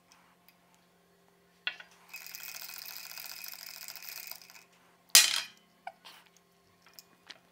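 A straw stirring ice cubes in a tall glass of iced coffee: steady, rapid clinking and rattling for about two and a half seconds. Then one loud, sharp glass clink.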